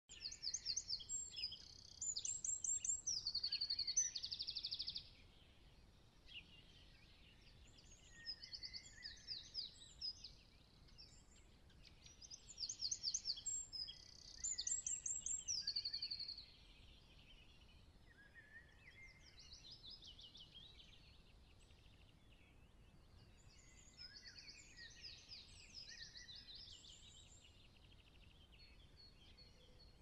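Small songbirds singing in fast twittering and trilling phrases. The song is loudest in the first half, with pauses between phrases, and quieter after about sixteen seconds in.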